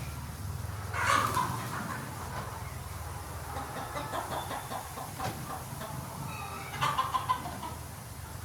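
Sonali hens clucking, with a louder call about a second in and another near the end, and short clucks in between. A steady low hum runs underneath.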